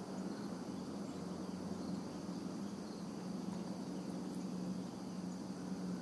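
Outdoor ambience of insects trilling steadily and high, over a low steady hum.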